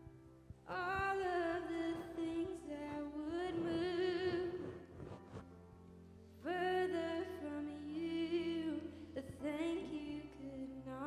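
Slow worship song: a singer's voice in two long phrases with vibrato, over a soft, sustained accompaniment.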